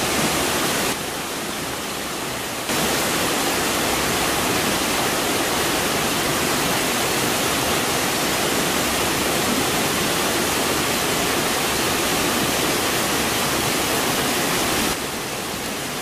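Small waterfall, water cascading over rock ledges: a steady rush that drops abruptly in level about a second in, comes back up at about three seconds, and drops again near the end.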